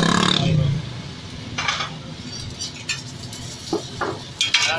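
Metal spatula scraping and clinking on a flat steel griddle a few times, the loudest scrape near the end. Street traffic noise is loud for the first second and then fades.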